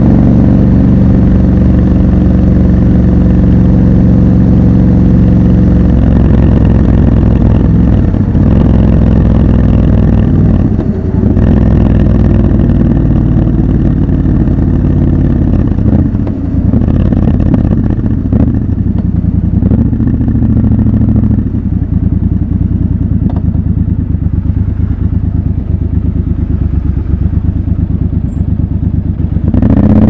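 Triumph Scrambler 1200 XC's 1200 cc parallel-twin engine heard from the rider's seat, running at steady revs for the first six seconds or so. After that the revs rise and fall repeatedly.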